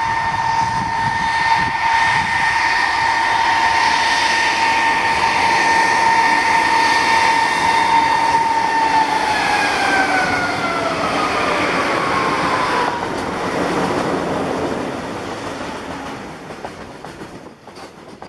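Twin ALCo diesel locomotives passing at speed with a steady high whine, typical of ALCo turbochargers, that drops in pitch as they go by about nine seconds in. The long rake of covered box wagons then rolls past with rushing wheel noise that fades near the end.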